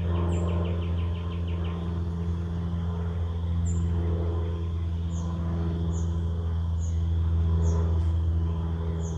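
Small songbirds calling: a quick trill in the first two seconds, then short high down-slurred chirps repeated about every second through the second half. Underneath runs a steady low drone, the loudest sound.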